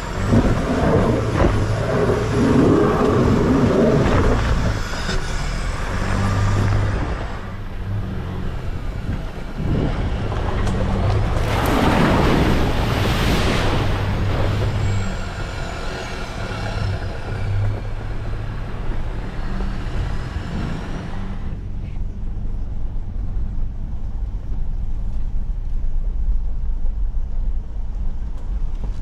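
Four-wheel-drive vehicle's engine running under way on a rough off-road track, a steady low drone. A loud rushing noise over it fades after several seconds, swells again briefly midway, then drops away, leaving the engine drone alone.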